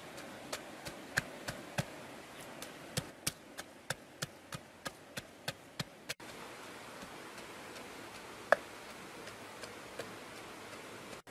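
Wooden pestle pounding whole red chillies and garlic in a mortar. Sharp knocks come at about three a second, then turn scattered, with one louder knock near the end.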